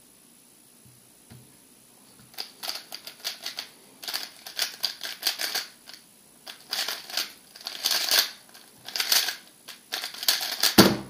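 MoYu RS3 M 2020 magnetic speedcube being turned fast during a solve: rapid clicking and rattling of its plastic layers in bursts with short pauses between, starting about two seconds in. A heavier thump comes near the end.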